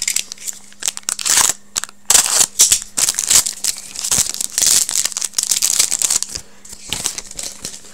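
Hockey card pack wrapper crinkling and tearing as the pack is opened and the cards are handled, in irregular crackly rustles.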